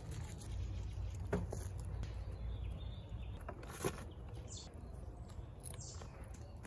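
Two light knocks from a long wooden pole being handled, over a steady low outdoor rumble, with a brief bird chirp or two near the middle.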